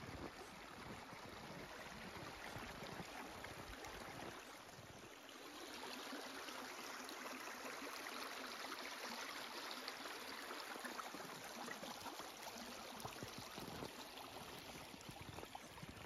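Small open stream trickling and gurgling, a steady water noise. For the first five seconds or so a low rumble lies under it.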